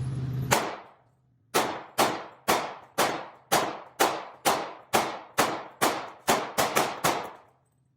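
Gun fired in rapid semi-automatic succession, about fifteen shots, each echoing briefly. After a first shot there is a pause, then shots at about two a second that come faster near the end before stopping.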